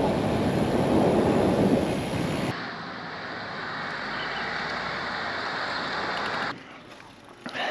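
Wind noise rushing over the microphone of a camera on a moving road bike. It drops abruptly in level about two and a half seconds in, and again near the end.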